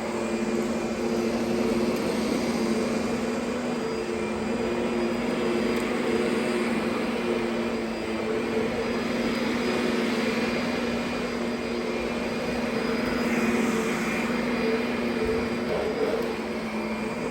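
Kirby Sentria II upright vacuum cleaner running steadily while vacuuming, a constant motor hum with a few held tones over a rushing hiss.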